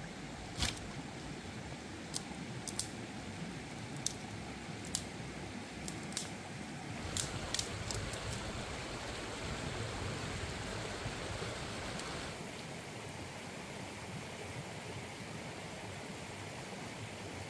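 Dry firewood sticks knocking together as they are set down and handled: about eight sharp knocks in the first eight seconds, over a steady rushing background noise.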